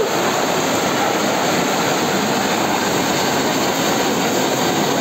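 Steady rushing hiss of floor spark fountains spraying sparks.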